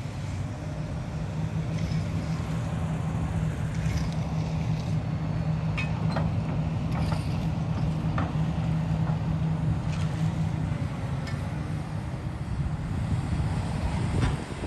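Heavy demolition machine engine running steadily under load, with scattered knocks and cracks of building debris breaking.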